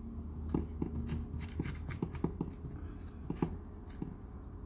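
Small kitchen knife cutting into a yellow güero chile on a wooden cutting board: a scattering of soft clicks and scrapes as the blade works around the stem end to open the chile for seeding.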